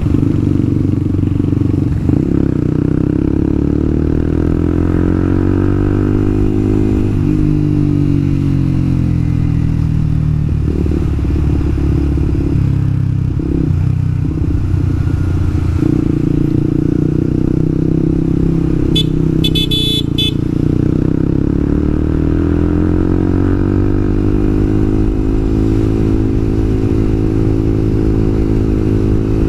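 A Yamaha R15 v2's single-cylinder four-stroke engine running under way, its pitch falling and rising again twice as the revs drop and build. A brief high-pitched beeping comes about two-thirds of the way through.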